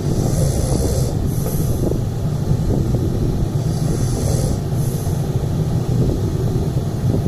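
A man snoring, a breath about every four seconds over a steady low, rattly rumble.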